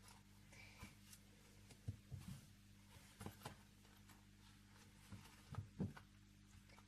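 Near silence in a small room: a faint steady hum with a handful of faint, scattered taps and clicks of small objects being handled.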